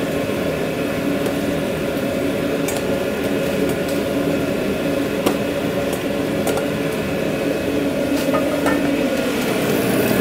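Steady mechanical hum of food-truck kitchen equipment, running evenly with several constant tones, with a few faint clicks scattered through.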